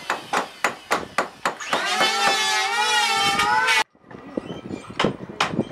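Hand hammering on wood, sharp blows about three a second, interrupted by about two seconds of a loud motor whine that wavers slightly in pitch and cuts off abruptly, after which the hammer blows resume.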